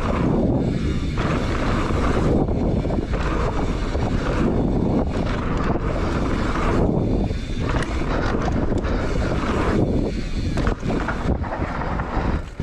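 Wind buffeting the action camera's microphone as a mountain bike rolls fast down a dirt trail, with the rumble of tyres on packed earth underneath.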